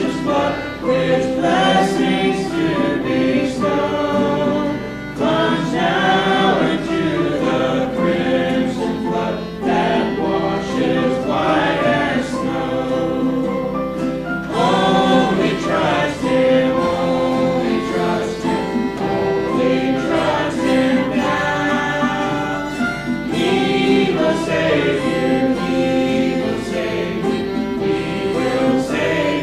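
A choir singing a gospel song with instrumental accompaniment.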